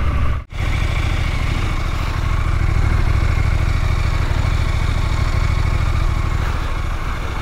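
KTM 990 Duke's parallel-twin engine running steadily under way, heard from the rider's position, with a brief break in the sound about half a second in.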